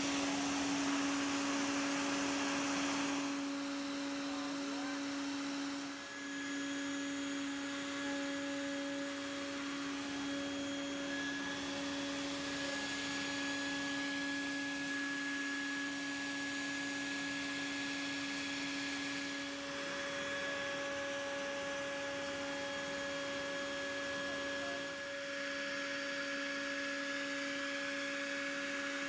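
CNC router spindle running with a steady whine while its small end mill cuts a carbon fibre sheet, over a steady hiss of cutting; the level dips briefly a few times.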